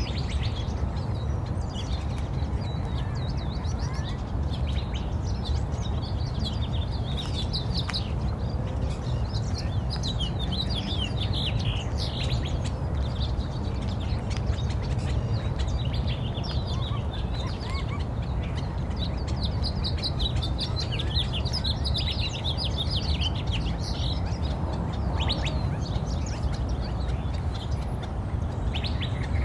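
Recorded birdsong: many small birds chirping and twittering throughout, over a steady low rumble.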